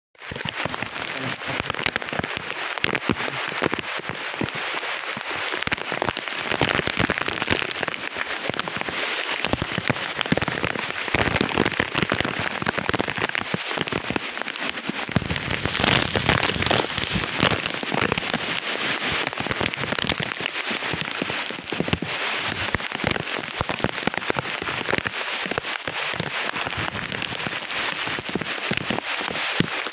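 Typhoon rain and wind: heavy rain pelting the banana and palm foliage with a dense crackle of drops, swelling in gusts and strongest about halfway through.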